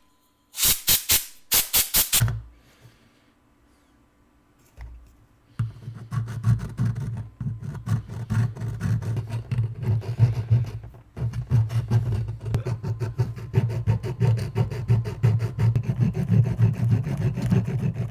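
A hand file rasping across the aluminium base of a lens to take material off it. There is a quick run of about six strokes at the start, a pause of a few seconds, then fast, continuous back-and-forth filing from about six seconds in.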